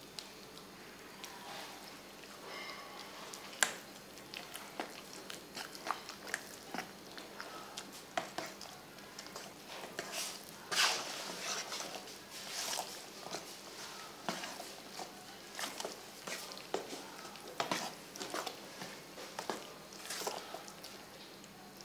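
Spoon stirring and mashing a wet minced pork and egg mixture in a stainless steel bowl: irregular wet squelches with clicks and scrapes of the spoon against the metal.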